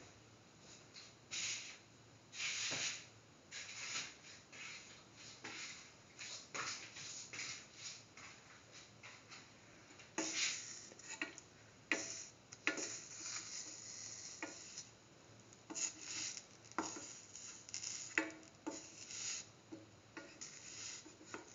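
Wheat flatbread dough cooking in a hot pan, with irregular crackling and hissing.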